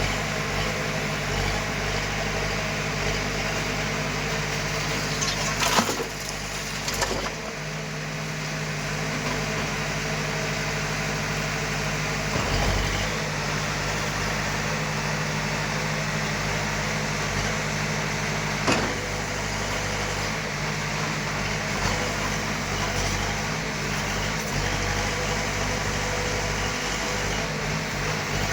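Heavy earth-moving machine's diesel engine running steadily, with a few sharp knocks, the loudest about six seconds in.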